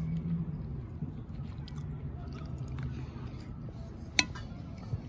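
Faint eating noises over a steady background, with one sharp click about four seconds in.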